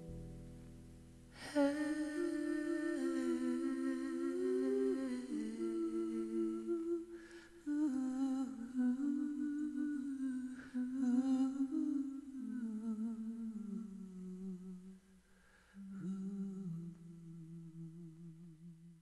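A voice humming a slow, wordless melody with vibrato, in long phrases that drift lower near the end.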